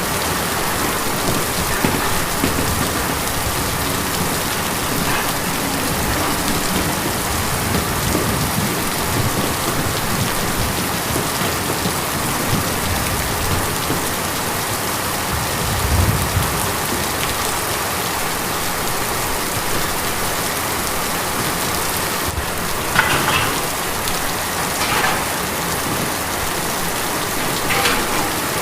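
Steady heavy rain drumming on a tin roof, with a few louder drops standing out near the end and a low rumble about halfway through.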